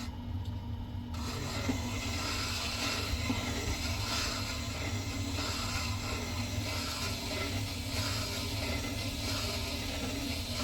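Bucktools wet sharpener's motor running with a steady low hum while a chisel is ground against its slowly turning wet stone. From about a second in the steel scrapes on the stone, swelling and fading in waves as the jig is slid back and forth.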